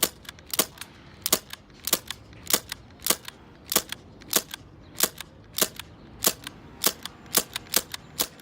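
Red Jacket CO2 BB pistol fired shot after shot in a steady string of sharp pops, about one and a half shots a second. Some shots are followed closely by a second, fainter click.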